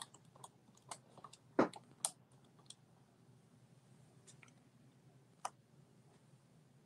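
Faint, irregular light clicks and knocks from a glass beaker and equipment being handled on a tabletop, the sharpest about a second and a half in, over a faint low hum.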